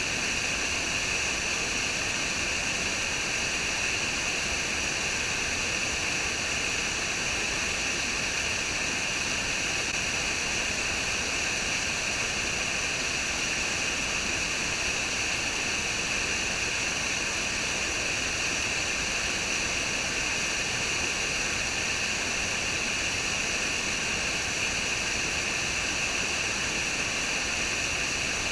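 Waterfall: a steady, unbroken rush of falling water with no change in loudness.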